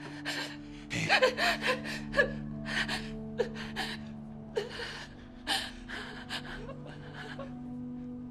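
A woman sobbing in gasping breaths with brief, broken wails, over a sustained low music drone. The sobs come thick from about a second in and thin out near the end.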